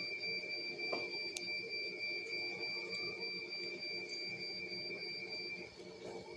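A steady, high-pitched electronic alarm tone from dialysis-unit equipment, cutting off a little before the end, over a low steady hum of machines. A brief click about a second and a half in.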